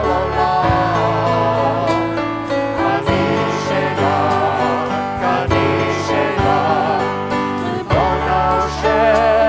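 A worship song: voices singing a melody over instrumental accompaniment, steady throughout.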